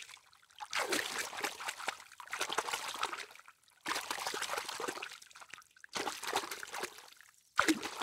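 Water trickling and splashing, in several stretches broken by short gaps.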